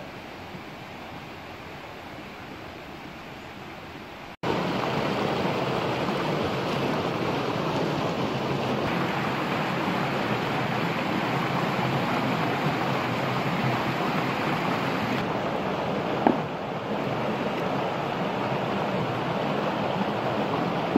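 Steady rush of flowing stream water, jumping louder at a cut about four seconds in, with a single short tap about three-quarters of the way through.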